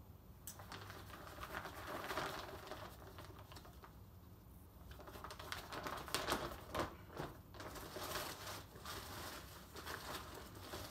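Fabric of a Palante V2 ultralight backpack rustling and crinkling as the pack's top is pulled open and the gear inside is rummaged through. A few sharp clicks and knocks come in the second half.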